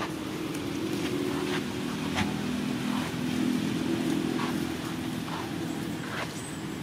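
A steady engine hum with several tones, swelling toward the middle and easing off near the end, with scattered light clicks over it.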